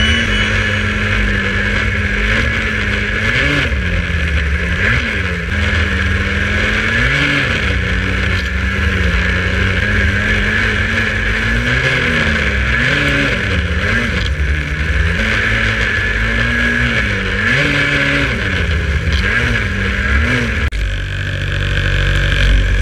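Ski-Doo snowmobile's two-stroke engine heard from on board while riding, its pitch repeatedly rising and falling as the throttle is blipped on and off.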